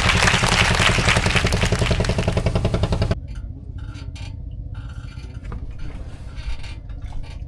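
An engine running loudly with a fast, even beat, cutting off abruptly about three seconds in, leaving a quiet background with a few faint clicks.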